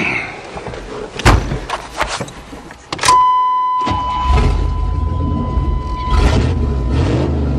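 A loud knock about a second in, then a steady high-pitched tone, and about four seconds in the truck's engine starts and settles into a loud, rumbling run. The engine now breathes through a makeshift exhaust that bypasses a catalytic converter the owner suspects is plugged.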